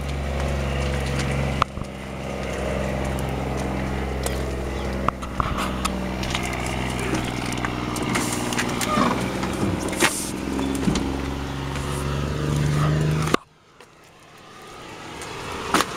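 Cat CT13 diesel engine of a CT660 truck idling steadily, with a few short clicks and scrapes close by. The engine sound cuts off abruptly about thirteen seconds in.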